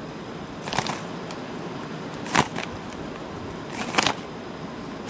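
Handling of a cardboard snack box as it is turned over in the hands: three short rustles about a second and a half apart, over a faint steady hiss.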